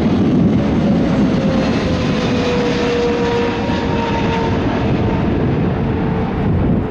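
Arriving United Airlines Boeing 777-300 twin-engine jet passing close by on approach: loud, steady jet engine noise with a tone that slowly falls in pitch as it goes past.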